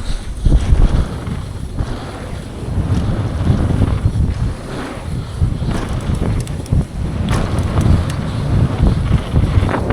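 Wind buffeting the microphone over the rumble and rattle of a downhill mountain bike ridden fast down a dirt trail, with a few sharp knocks near the end.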